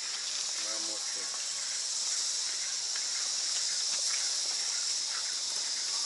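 Steady high-pitched insect chorus, an unbroken shrill drone, with faint voices in the background.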